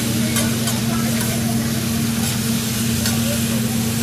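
Food sizzling on a hot teppanyaki griddle, over a steady low hum, with a few light clicks.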